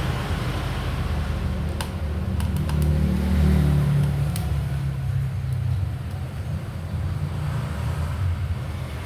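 A low steady rumble that swells to its loudest about three to four seconds in, with a few light clicks around the middle.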